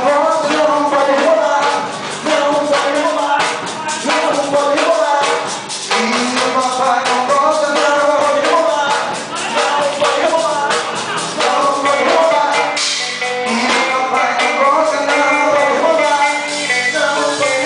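Christian praise (louvor) band music: singing over drums with a steady beat.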